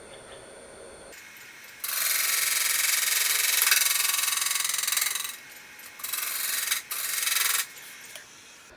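Turning tool cutting into a cottonwood platter spinning on a wood lathe, a harsh scraping noise. One long cut of about three seconds starting about two seconds in, then two short cuts near the end.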